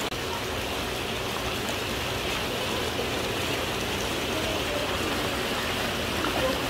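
Steady hiss of falling water.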